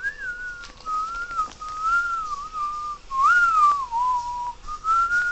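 A person whistling a tune: a single clear note that wanders up and down in short phrases, swooping up about three seconds in and then dropping.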